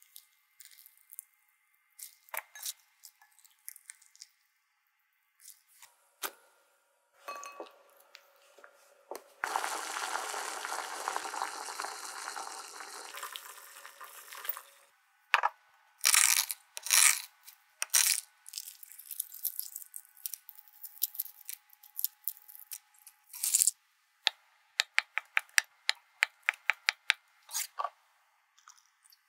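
Kitchen prep sounds. First, soft squelches of hands squeezing salted, rinsed cabbage and cucumber in a glass bowl. Then a few seconds of water bubbling in a glass pot of boiling eggs. Then sharp knocks and crisp clicks, ending in a quick, even run of knife strokes about five a second as boiled eggs are chopped finely.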